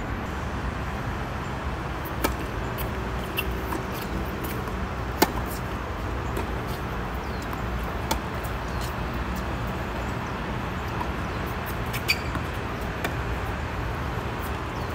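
Tennis ball struck by racquets and bouncing on a hard court during a rally: a string of sharp pops a second or a few seconds apart, the loudest about five seconds in, over a steady background noise.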